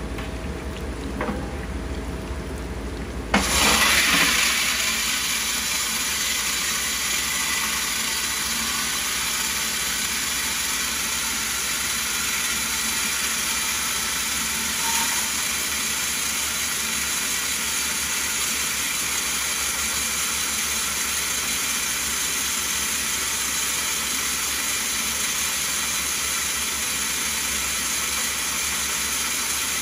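Stone bead milling machine starting about three seconds in: a low hum gives way to a sudden loud rush that settles into a steady grinding hiss as the rough stone beads are milled wet under running water.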